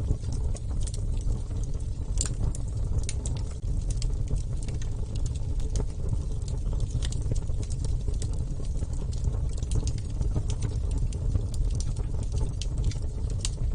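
Wood fire burning, with irregular sharp crackles and pops several times a second over a steady low rumble of the flames.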